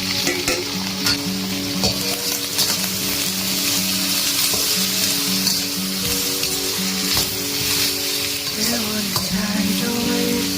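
Food sizzling and frying in a hot pan while it is stirred, with short scrapes and clicks of the utensil. Soft background music plays under it.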